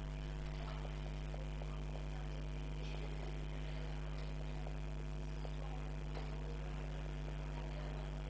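Steady electrical mains hum, low and even. Faint, brief scratches of a marker writing on the board sound over it.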